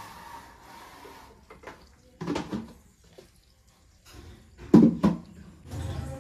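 Light knocks and clatter of a plastic water bucket and container being handled on a kitchen counter, with a louder pair of knocks near the end.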